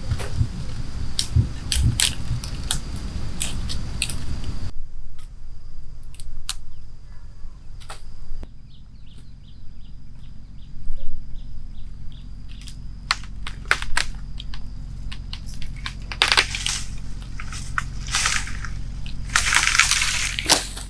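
Dry twigs and branches snapping by hand in a run of sharp cracks and crackles, then longer rustling spells near the end as a long dry branch is dragged through grass.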